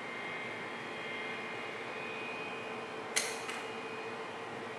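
Distant Airbus A318's Pratt & Whitney PW6122A jet engines running steadily as the airliner rolls along the runway: a steady whine over a hiss. A sharp click about three seconds in, followed by a fainter one.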